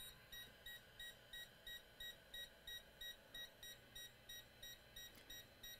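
Faint, rapid electronic beeping, about four short high beeps a second, from a voltage injection tool while it is injecting voltage into a shorted laptop motherboard.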